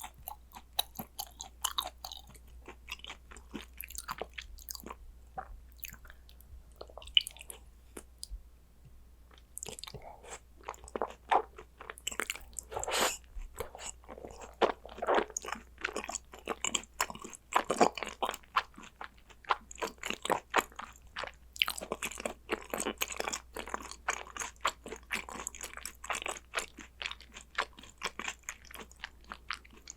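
Mouth sounds of eating spicy gochujang beef tartare (yukhoe): continuous chewing and biting with many quick wet clicks and crunches. They thin out briefly about a quarter of the way in, then come thicker and louder.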